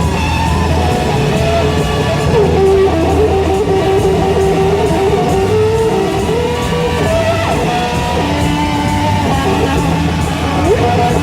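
Psychedelic rock instrumental: electric guitar over a steady bass drone, with long held lead notes that slide up and down in pitch.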